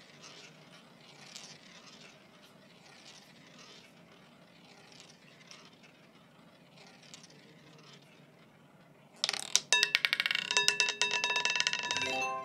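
Faint background sound while the roulette wheel spins. About nine seconds in, an online casino game's win jingle starts suddenly and loudly: a fast run of clicking chimes, like coins being tallied, over ringing bell-like tones.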